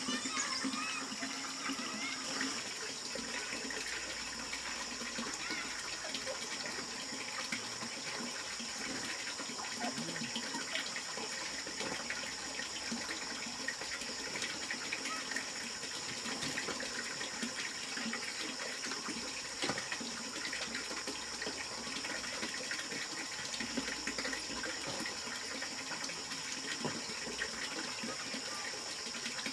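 Steady running or pouring water, even throughout, with a steady high hiss over it and scattered small clicks.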